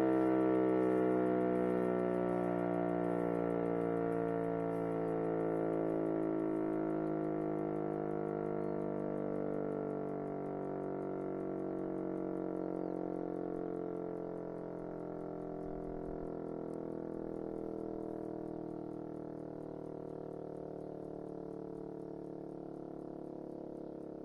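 E57 electromechanical civil-defence siren winding down: its tone slides slowly lower in pitch and fades steadily as the rotor coasts to a stop after the test alarm.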